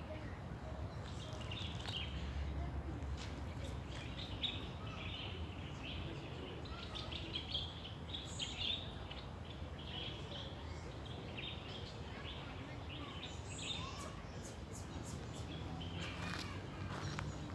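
Small songbirds chirping and twittering in short repeated calls, over a steady low background rumble. A run of sharp clicks comes near the end.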